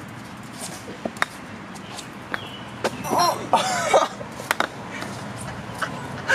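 A person coughs once, a short voiced rasp about halfway through, among scattered light clicks and taps.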